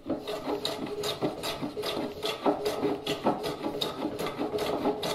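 A hand rasp filing a chamfer on the end edges of a pine workbench leg, in quick, even strokes of about four a second.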